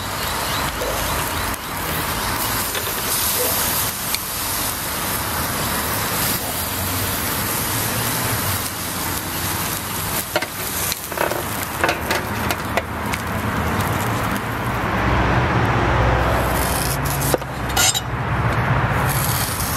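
Prosciutto-wrapped pork loin sizzling over charcoal on a hibachi grill, with a few clicks of metal tongs on the wire grate as it is turned. A low rumble builds in the last few seconds.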